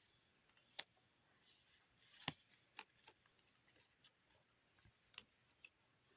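Faint handling of a stack of trading cards: cards sliding and flicking against each other as they are flipped through, soft rustles broken by a handful of sharp clicks, the loudest about two seconds in.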